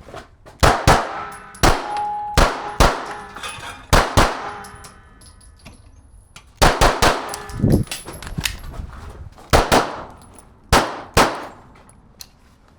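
Pistol shots fired mostly in quick pairs, about fifteen in all, with a pause of about two seconds midway, some followed by a metallic ring.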